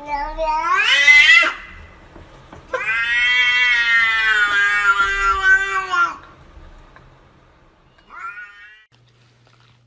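Domestic cat meowing in long drawn-out yowls: one call rises sharply in pitch and breaks off about a second and a half in, a long steady yowl of about three and a half seconds follows and drops in pitch at its end, and a short rising meow comes near the end.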